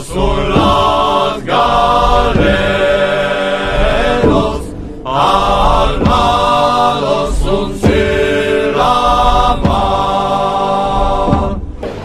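Chant-like singing in long held phrases, each breaking off briefly every few seconds.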